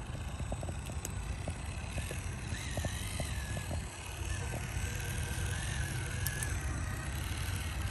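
Electric motor and drivetrain of a 1/10-scale RC rock crawler whining as it crawls over bark and logs, the pitch wavering up and down with the throttle. There are a few light clicks in the first half, over a steady low rumble.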